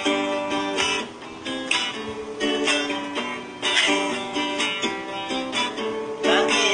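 Acoustic guitar strummed in a steady rhythm, playing the chord introduction to a song.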